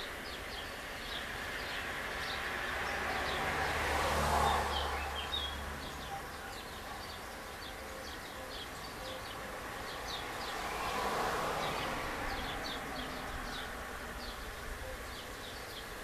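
Small birds chirping in quick, repeated short high notes, over street traffic: a vehicle passes about four seconds in, the loudest moment, and a second, lighter one about eleven seconds in.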